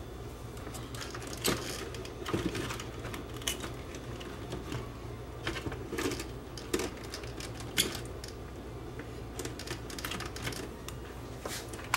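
Irregular small clicks and plastic rattles of hands handling a circuit board and its wiring inside the opened chassis of a small colour CRT television, over a steady low hum.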